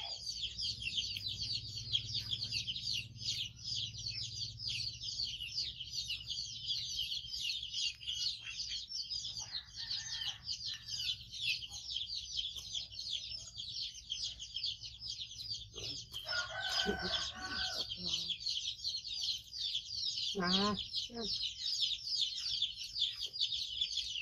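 Bird calls: a continuous dense high-pitched chirping chorus, with a longer crowing-like call about sixteen seconds in and a short wavering call about twenty seconds in.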